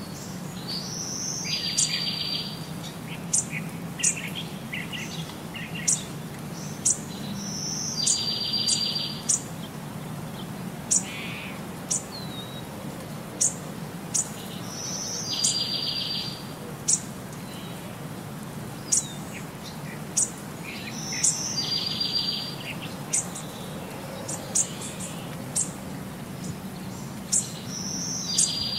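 Bird calls and sharp chirps, the same short run of calls coming back about every seven seconds, over a steady low hum.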